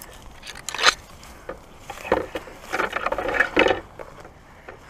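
Footsteps crunching through dry leaf litter as brush and twigs rustle and scrape past, in irregular crackling bursts, loudest for about a second past the middle.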